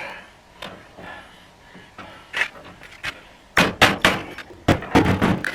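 Sears steel tool box drawer being worked out of the fallen top section: a few light knocks, then a run of sharp metal bangs and clatter of the drawer and its tools from about three and a half seconds in.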